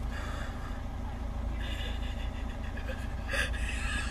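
Car engine idling: a steady low rumble, with a faint higher sound laid over it about halfway through.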